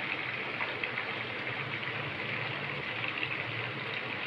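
Marinated chicken pieces deep-frying in a pan of hot oil on a high gas flame: a steady sizzle with small scattered crackles.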